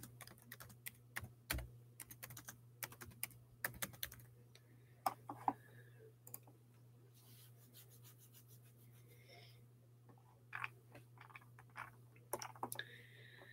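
Faint typing and clicking on a computer keyboard: scattered keystrokes for the first several seconds, a pause, then a few more clicks near the end, over a low steady hum.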